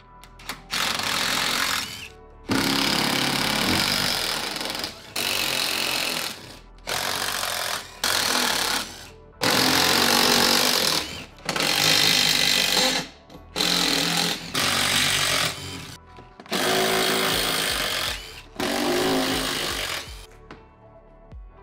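Cordless impact driver hammering out 10 mm bolts in about ten short bursts of one to two seconds each, with brief pauses between them.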